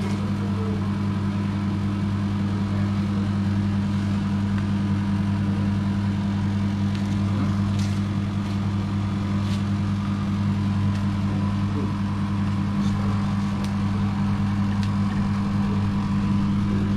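Steady low hum of a running kitchen appliance motor. A few faint light clicks come from food and utensils being handled while a burger is put together.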